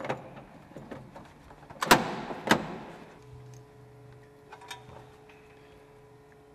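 Sharp metallic clanks and clicks of fittings being coupled by hand on a tractor's rear, the two loudest about two seconds in; after about three seconds a faint steady hum sets in, with a couple of small ticks.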